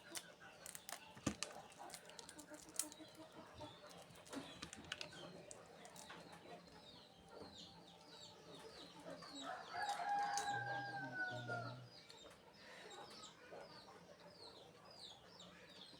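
A rooster crowing once, a long call of about two seconds, starting about ten seconds in. Behind it run short high chirps of small birds and scattered clicks.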